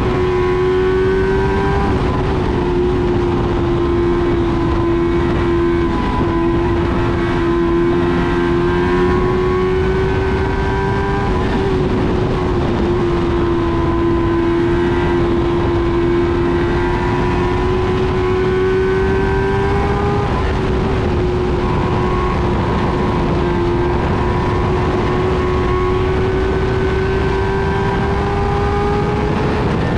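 Dwarf race car's engine at high revs, heard from inside the cockpit. Its pitch climbs slowly and drops sharply four or five times, with other cars' engines sliding in and out underneath.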